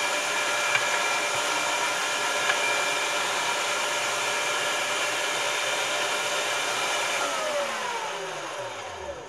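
Electric meat grinder motor running steadily while it pushes ground meat through the stuffing tube into sausage casing. About seven seconds in it is switched off and winds down, its pitch falling until it stops.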